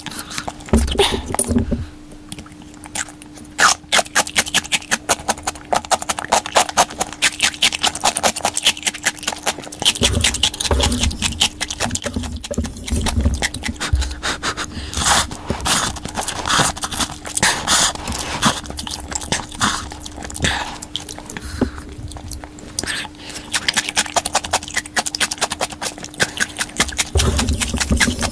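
Close-miked eating sounds of a person slurping and chewing cup noodles: many quick wet clicks and smacks, with a few low bumps and a faint steady hum underneath.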